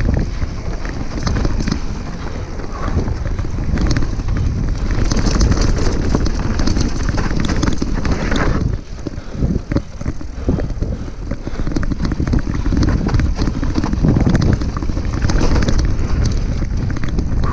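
Wind buffeting the microphone of a camera on a mountain bike speeding down a rough dirt trail, with the bike rattling and clattering over the bumps throughout. It eases briefly about nine seconds in.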